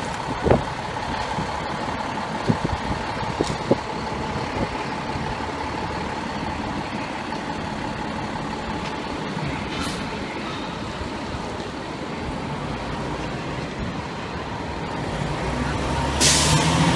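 Fire engine's diesel idling steadily, with a few knocks in the first few seconds. Near the end a short air-brake release hiss, then the engine rises as the rig pulls away.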